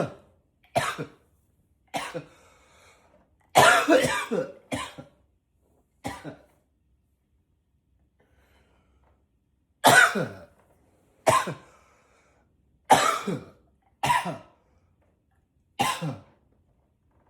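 A man coughing: about ten separate short coughs, one every second or two, with a pause of about three seconds midway.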